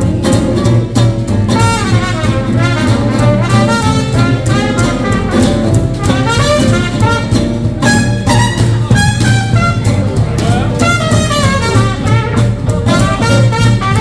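Live hot swing jazz band playing an instrumental chorus: a horn carries a bending melodic line over a steady beat from rhythm guitar and upright bass.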